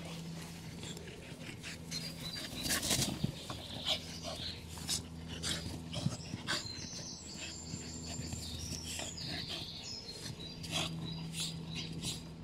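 Two Puli dogs, an adult and a puppy, playing rough together: panting and scuffling in loose dirt, with many short, sudden noises.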